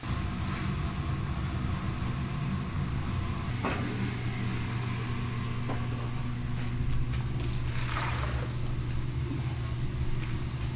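Steady low mechanical hum, with a few light clinks and scrapes over it.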